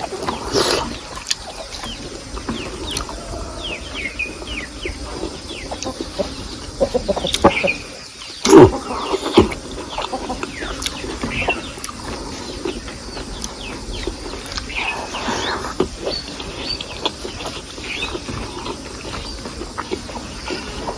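Chickens clucking on and off, mixed with close eating sounds: chewing and crunching of food, with a louder sharp knock about eight and a half seconds in.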